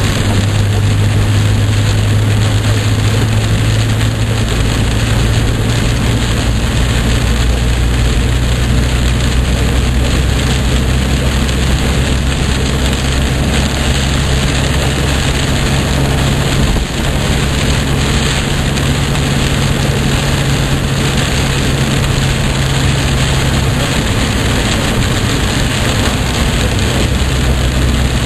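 Heavy rain hitting a moving car and tyres hissing through standing water on the road, heard from inside the cabin, over a steady low engine hum.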